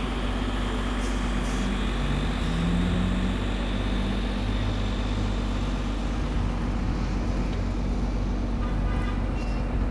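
Steady city street traffic noise, with a city bus's engine running; its low engine note stands out briefly a couple of seconds in.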